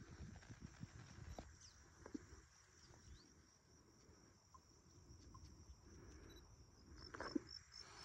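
Near silence with a faint, steady, high-pitched insect drone, broken by a few soft ticks and rustles.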